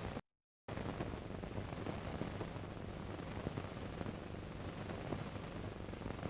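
Steady hiss with a faint low hum from an old analog recording, cutting out to complete silence for about half a second just after the start, then resuming.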